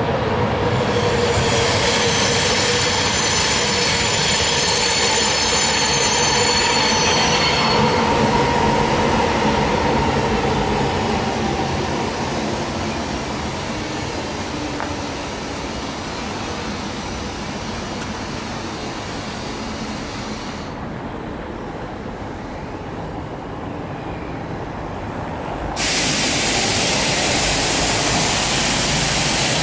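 Container freight train rolling past on steel rails, with high wheel squeal in the first several seconds and a steady rolling noise after. About four seconds before the end a loud hiss starts suddenly and then cuts off.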